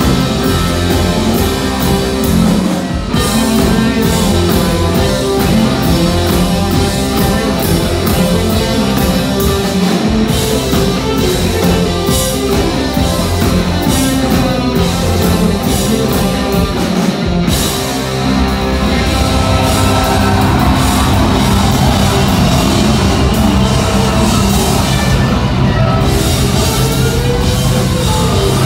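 Rock band playing live and loud: distorted electric guitar, keyboard and a full drum kit. About 18 seconds in, the playing gives way to sustained, droning chords with a slowly sliding tone.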